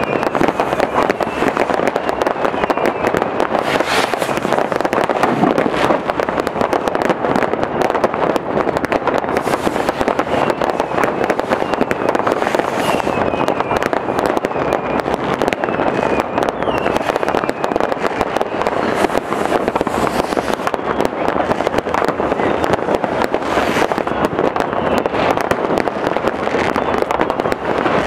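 Loud, unbroken barrage of many fireworks and firecrackers going off at once, a dense mass of bangs and crackles, with several thin whistles sliding down in pitch.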